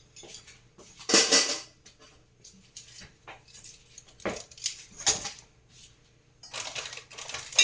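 Kitchenware and utensils being handled and set down: a clatter about a second in, a couple of single knocks, then a longer rattle near the end.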